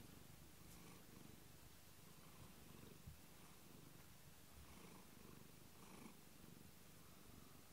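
Domestic cat purring softly and steadily.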